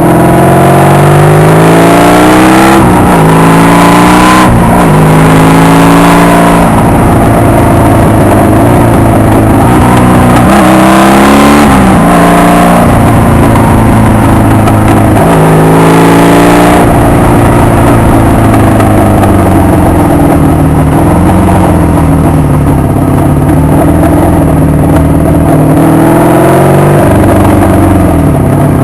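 Honda VF750 V4 motorcycle engine accelerating through the gears, its pitch climbing and then dropping at each of several gear changes in the first half, then running at a fairly steady cruise with small rises and falls in revs.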